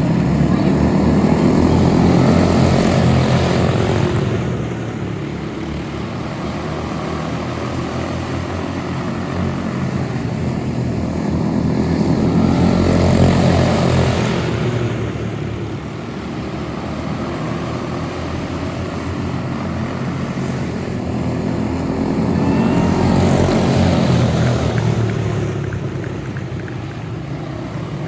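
Quarter midget race cars with single-cylinder Briggs & Stratton Animal engines running laps, the engine sound swelling three times as the field comes past and fading between passes.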